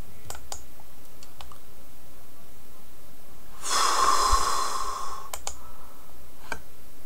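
A few sharp clicks from working a computer, then a long breathy exhale of about a second and a half, then a few more clicks.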